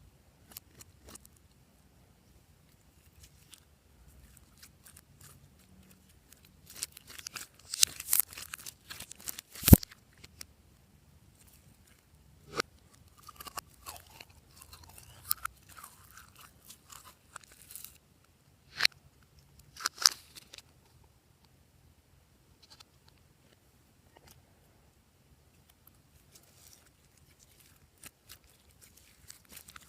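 Glossy slime being squished and mixed by hand, giving scattered crackling clicks and pops in clusters, with one sharp snap about ten seconds in.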